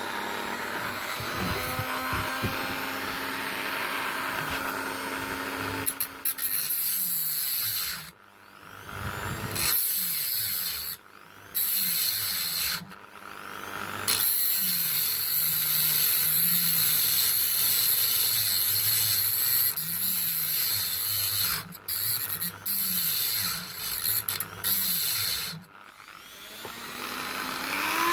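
Angle grinder cutting off the bolts that hold the engine to a lawnmower deck: a loud metal-cutting screech that stops and starts several times, the motor's pitch sagging and recovering under load. Near the end the grinder spins back up with a rising whine.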